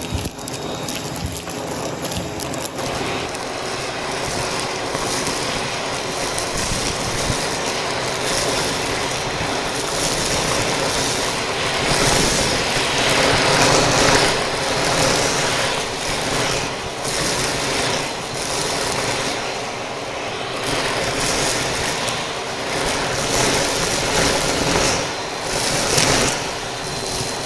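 Vacuum cleaner running with a dusting brush attachment: a steady motor hum under rushing air noise that swells and dips as the brush is worked.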